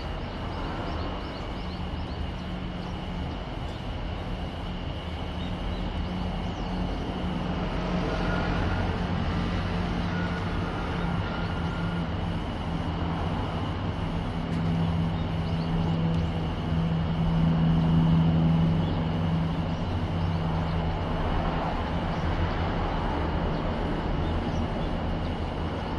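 Jet aircraft flying over: a steady low engine rumble that swells to its loudest about two-thirds of the way through, then eases off.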